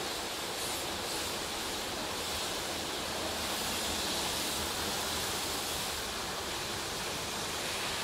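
Stargate S6 automatic gantry car wash running its brush cycle: rotating brushes scrubbing the car under water spray, a steady rushing hiss.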